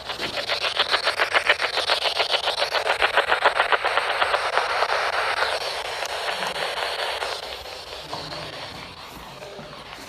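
A spirit box sweeping through radio stations makes rapid choppy pulses of static, about ten a second. About five and a half seconds in, it eases to a softer hiss, which fades further near the end.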